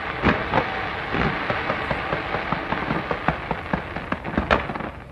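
Fireworks going off around a tower: a dense, continuous crackle of many small pops, with sharper bangs standing out now and then, the loudest about four and a half seconds in.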